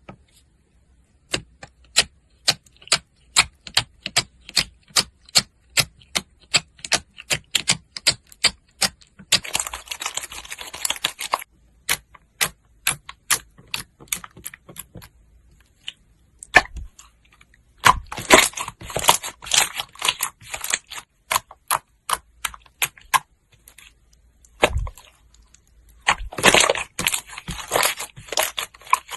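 Slime being pressed and stretched, giving a run of sharp clicky pops two or three a second, broken by stretches of dense crackling.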